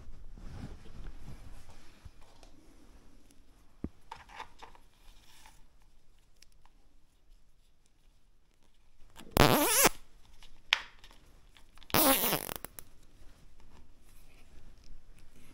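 Plastic cable ties being pulled tight: two short ratcheting rasps, about two and a half seconds apart, with light clicks and handling noise around them.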